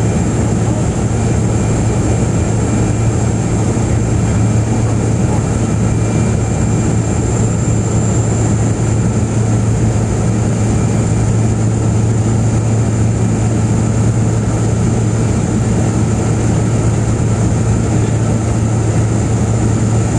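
Cabin noise of a de Havilland Canada DHC-6 Twin Otter on landing approach, its two Pratt & Whitney PT6A turboprop engines and propellers running: a loud, steady drone with a strong low propeller hum and a thin high whine above it.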